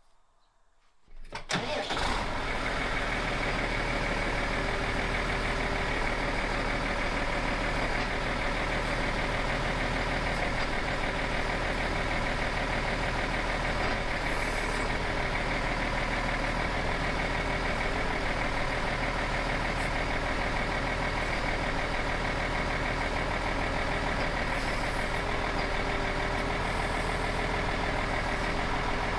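Tractor engine starting about a second and a half in, then running steadily.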